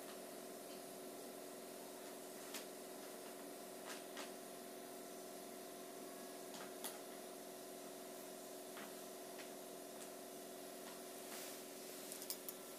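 Quiet room tone: a steady low electrical hum, with a few faint short clicks scattered through it and a small cluster of them near the end.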